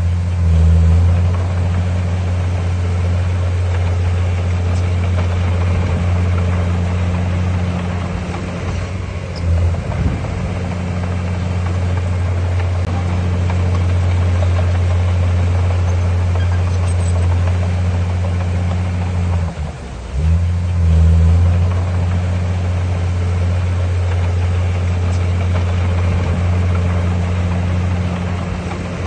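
Bulldozer's diesel engine running steadily under load as it pushes stone, a low drone that briefly dips and picks up again twice, about ten and twenty seconds in.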